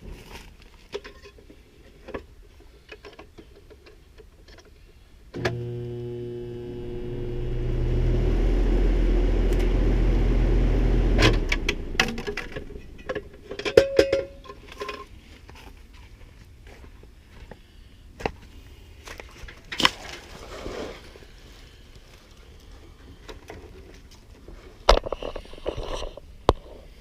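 Locked-rotor hum of a York condenser's compressor trying to start and not turning over, drawing over 100 amps of inrush; the technician takes the start winding to be probably burnt open. The loud hum comes on suddenly about five seconds in, builds for about six seconds and cuts off abruptly, followed by scattered clicks and knocks.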